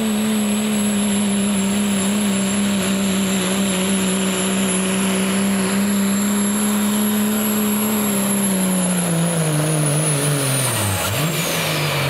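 Second-generation Dodge Ram's Cummins diesel held at steady high revs at full throttle while pulling a sled, with a high, steady turbo whistle over the engine. About nine seconds in the revs start to fall, and near the end the engine drops off sharply and the turbo whistle winds down as the pull ends.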